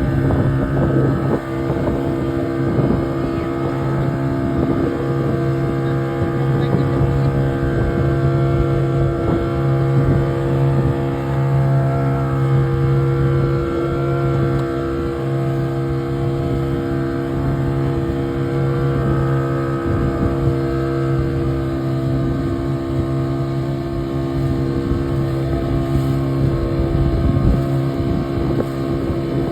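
A boat engine running at a steady speed under way, with wind buffeting the microphone.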